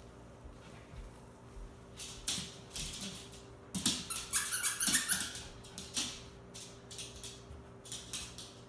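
Shih Tzu's claws clicking and scrabbling on a hardwood floor as it hops and shifts on its hind legs, begging for a toy. A few scattered clicks come first, then a busy run of them about four to five and a half seconds in.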